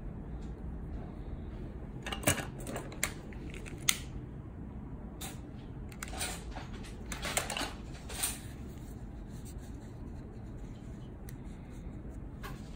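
Small clicks and rustles of electrical wires and tools being handled as the wire ends are twisted together, scattered irregularly, a few sharper ones a couple of seconds in and again near the middle, over a steady low hum.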